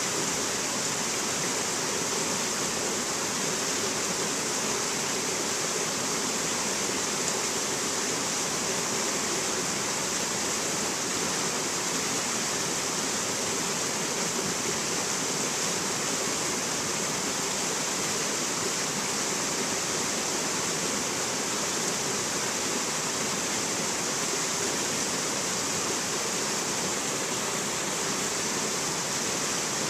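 Rocky mountain stream rushing over boulders and small cascades: a steady, unbroken rush of water.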